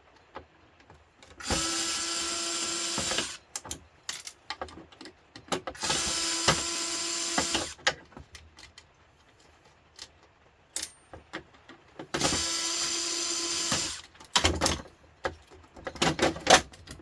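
Power drill running in three short bursts of about two seconds each at a steady pitch, with clicks and clatter of metal parts between them and several loud knocks near the end.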